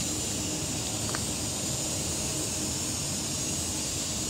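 Steady outdoor background noise: an even hiss with a faint low hum under it, and one short, faint click about a second in.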